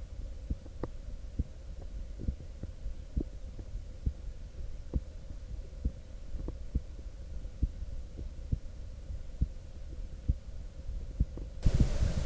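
Human heartbeat heard through a stethoscope into a USB microphone: regular low thumps over a steady low hum. Near the end a loud hiss cuts in suddenly and the beats grow louder.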